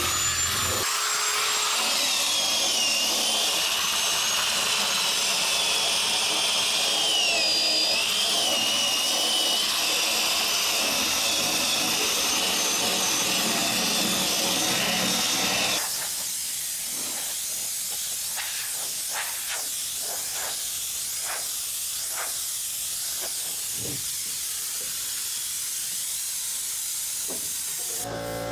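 Air-powered disc grinder sanding an aluminum boat hull: a strong hiss of air with a high whine that wanders up and down. About sixteen seconds in it turns quieter and scratchier, with irregular strokes as the disc works over the rivets.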